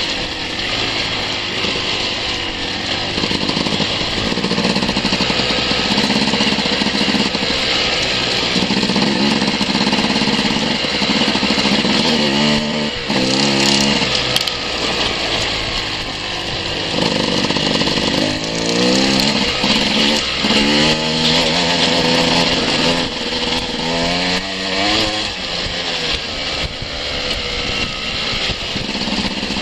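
Enduro dirt-bike engine running on the trail, its revs rising and falling again and again from about twelve seconds in as the throttle is worked.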